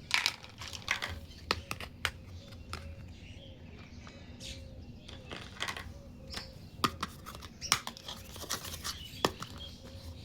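Small plastic toy kitchen pieces being handled and set down: irregular light clicks and taps with a few sharper clacks.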